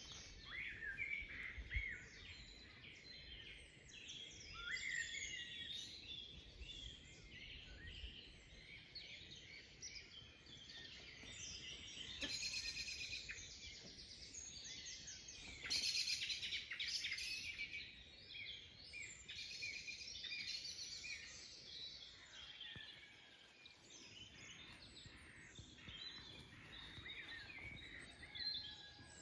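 Several songbirds singing at once: a steady mix of overlapping chirps, whistles and trills, with louder passages around the middle.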